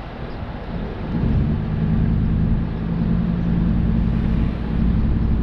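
Vehicle engine and road rumble while driving, with a steady low engine hum that grows louder about a second in.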